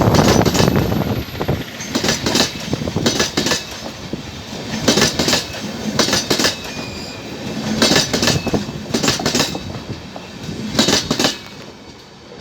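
Intercity passenger train's LHB coaches rolling past, their wheels clacking over rail joints in regular groups of clicks over a steady rumble. The clacking stops near the end as the last coach goes by.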